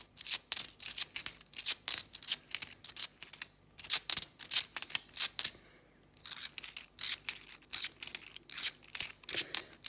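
Cupronickel 50p coins clinking against one another as they are thumbed one by one off a stack held in the palm: a quick run of sharp metallic clicks with a light ring, broken by two brief pauses near the middle.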